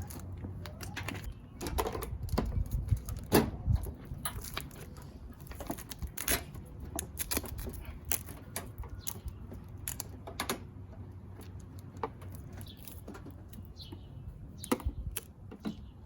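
Irregular clicks, taps and knocks of hard plastic and metal parts being handled and fitted: a pickup truck's headlight assembly being put back in place, busiest a few seconds in.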